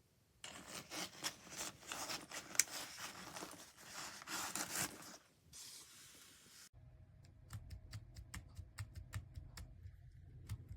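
Rustling and scraping handling noise for about five seconds. Then, after a sudden change about two-thirds of the way in, keys on a small wireless numeric keypad with round keys click as they are pressed, several a second, over a low hum.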